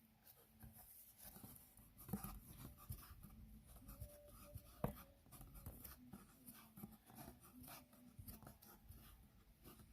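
Faint scratching and rustling of thin twine being handled and wrapped around the neck of a cutting board, with small ticks and one light knock about five seconds in.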